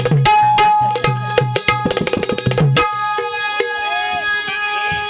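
Live Marathi folk music accompaniment: fast hand-drum strokes with held instrumental notes sounding over them. About three seconds in, the drumming stops and the held notes carry on.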